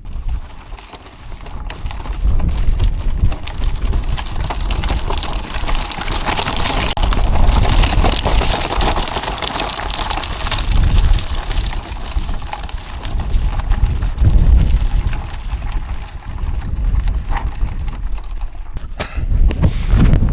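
Loaded hand-pulled cart rattling and clattering over a rough track, mixed with footsteps. Strong wind rumbles on the microphone throughout.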